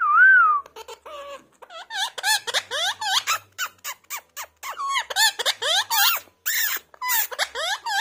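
Rose-ringed parakeet (Indian ringneck) talking: one clear whistled note at the start, then a rapid run of short, high syllables that bend up and down in pitch, with a brief pause just past the middle.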